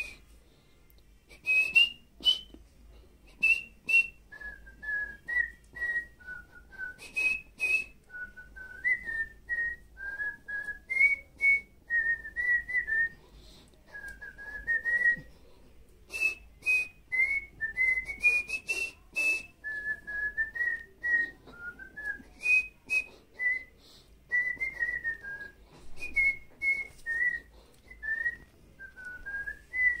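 A person whistling a slow melody of praise, one clear note after another, stepping up and down in pitch.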